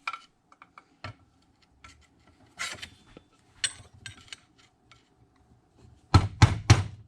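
Small metal-tool clicks and scrapes while the tabs of a bolt locking plate on a chainsaw are bent over against the bolt heads, then three sharp knocks in quick succession near the end.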